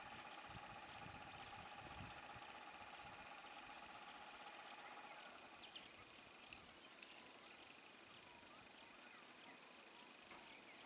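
Insects chirping in a rapid, steady pulsing trill, with a lower steady drone that stops about five seconds in.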